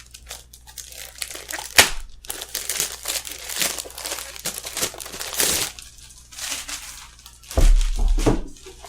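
Laptop packaging crinkling and rustling as it is handled and unwrapped, with a sharp click about two seconds in and a low thump near the end.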